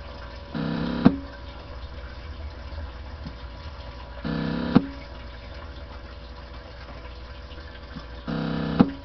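Uniden PC76XL CB radio giving off a steady hiss and hum, broken three times by a short buzzing tone about half a second long that ends in a sharp click, about every four seconds.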